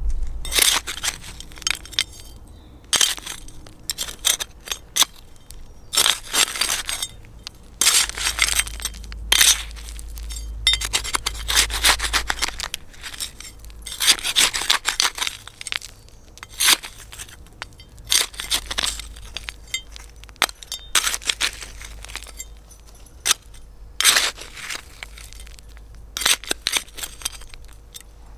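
Hand trowel digging, with repeated scraping and crunching strokes into the ground at irregular intervals. Some strokes come singly and some in quick clusters, with short pauses between them.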